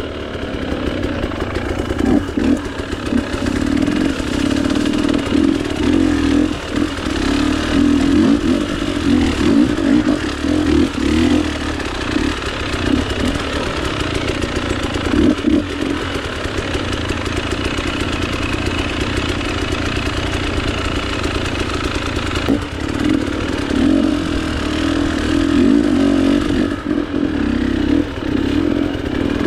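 Two-stroke dirt bike engine running as it is ridden on a trail, its revs rising and falling over and over, with some clatter.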